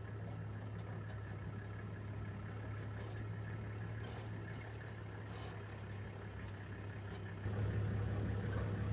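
Safari vehicle's engine idling steadily, getting a little louder about seven and a half seconds in.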